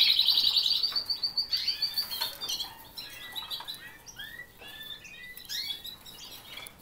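Domestic canaries singing and chirping: a loud rapid trill that fades away over the first couple of seconds, then quieter scattered chirps and short calls.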